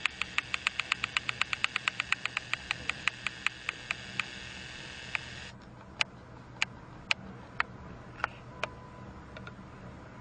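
Battery-powered toy train running on plastic track: a motor whir with sharp rhythmic clicks that slow from about five a second to two. The whir cuts off about five and a half seconds in, and a few scattered clicks follow.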